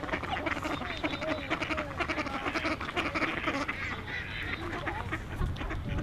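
A flock of mallard ducks quacking and chattering close by, many short calls overlapping.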